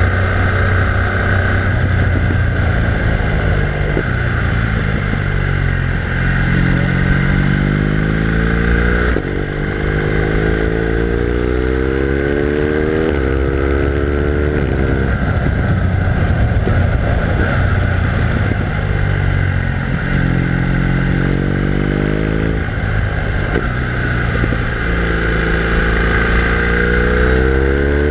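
BMW R1200R LC's boxer-twin engine on the move, its pitch climbing again and again under acceleration and dropping back at gear changes and when the throttle closes, over a steady hiss.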